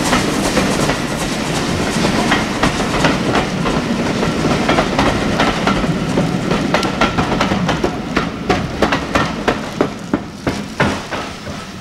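Passenger coaches of a steam-hauled train rolling past, their wheels clicking over the rail joints. The clickety-clack thins into separate sharp clicks near the end as the last coach goes by and the rumble fades away.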